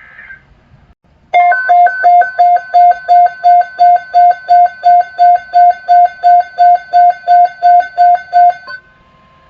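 Emergency Alert System alert tone: a loud electronic beep pulsing about three times a second over steady higher tones for about seven seconds. The pulsing stops near the end and a single steady tone holds on. It announces the next severe weather message.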